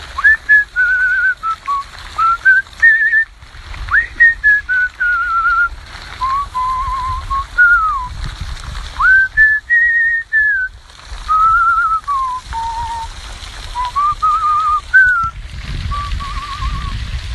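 A man whistling a tune close to a phone's microphone: short melodic phrases a second or two long with a quick wavering vibrato, separated by brief breaks.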